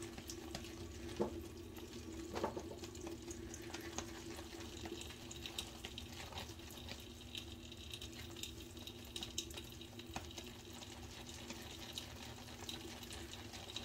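Shaving brush swirled through thick, dense shave-soap lather in a handheld bowl: a faint wet swishing with many small scattered clicks and squelches.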